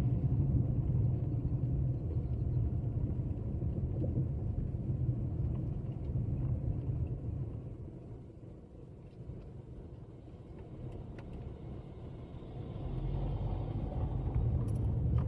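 Car cabin road noise: a steady low rumble of engine and tyres while driving, easing off about halfway through and building up again near the end.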